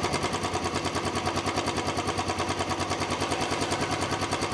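Royal Enfield Classic 350's single-cylinder engine idling with an even beat of about eight pulses a second. The engine has just been repaired for rocker noise and a knocking on self-start, which the mechanic says no longer comes.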